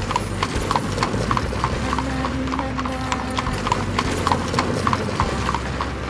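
Horse's hooves clip-clopping steadily as it pulls a carriage, about three or four hoof strikes a second.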